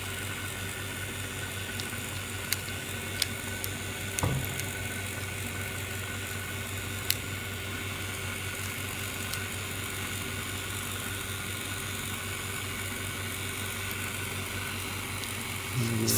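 Steady hum of a phone-screen separating machine, with a few sharp light clicks and one soft knock about four seconds in as fingers work pry cards around the phone's frame.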